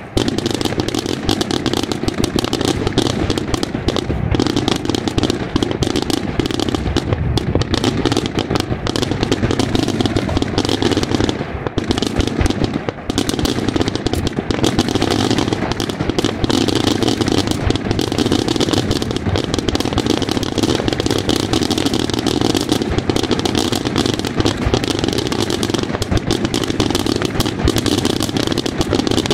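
Daytime fireworks going off in a dense, unbroken barrage of rapid bangs and crackling. It starts suddenly and runs on with only a brief dip about twelve seconds in.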